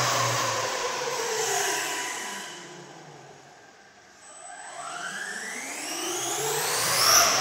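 Electric RC car's motor and drivetrain whine as it races past, falling in pitch and fading as it speeds away. It then rises in pitch and grows louder as the car comes back, passing close again near the end.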